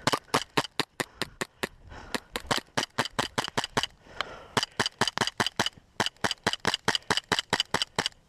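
Airsoft 1911 pistol firing shot after shot, about four to five sharp cracks a second, in four strings broken by brief pauses.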